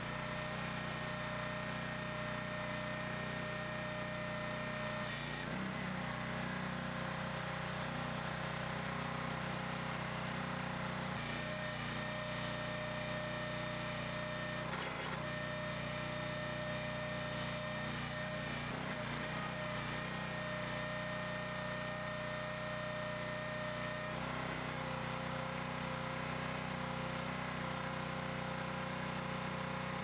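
Small gas engine running steadily, driving the towable backhoe's hydraulic pump, with a constant hum and a faint steady whine; the pitch shifts slightly a few times.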